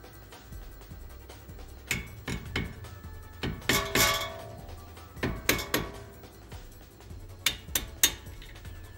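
Sharp metallic clinks and taps, in small clusters, of metal tools or parts being handled and set down, over background music.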